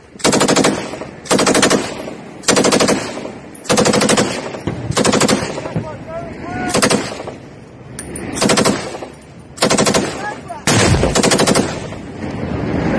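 Light machine gun firing short bursts of automatic fire, about nine in a row, each burst about half a second long and trailing off in echo before the next.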